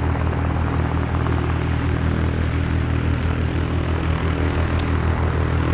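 Light propeller aircraft engine running with a steady, even drone. Two brief high clicks come over it about three and five seconds in.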